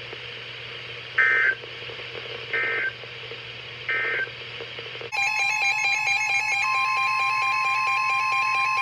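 Emergency Alert System broadcast: three short buzzy bursts of digital data, the end-of-message code that closes the warning. About five seconds in, a loud steady alert tone starts, and a second steady tone joins about a second and a half later.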